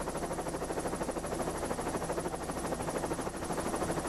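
Helicopter heard from inside the cabin in flight: steady engine and rotor noise with a fast, even chop of the rotor blades.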